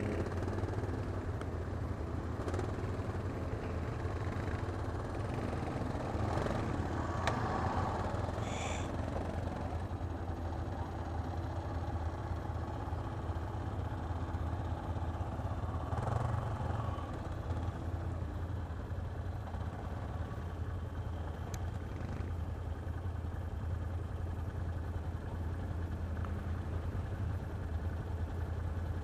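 ATV engine idling steadily, with a few brief swells of louder engine noise from other quads working in the mud ahead.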